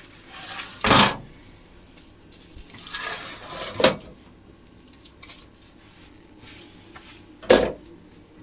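Kitchen utensils being handled on a worktop: three sharp knocks and clatters, with softer rustling and scraping between them.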